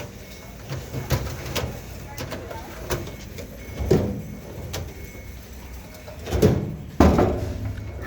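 Metal tool-chest drawers sliding open and shut, with a few sharp clicks and a loud clunk about seven seconds in as a drawer closes.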